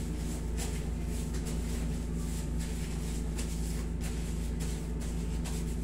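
Steady low hum of a room air conditioner, with faint soft rustling of clothing and skin as a leg is bent and worked on a massage table.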